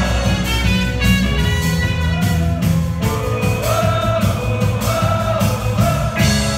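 A live folk-rock band playing a song with a steady drum-kit beat, guitars and a brass section on stage.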